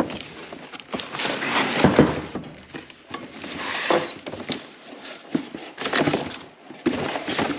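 Cardboard box and packing scraping and rustling as a heavy bench vise is slid out of it, with several dull knocks and thuds along the way.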